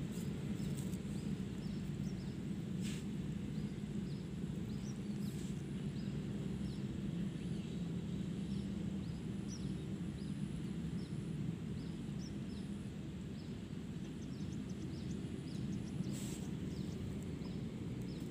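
Steady low outdoor rumble with many faint, quick high chirps scattered through it, and a few soft brief rustles.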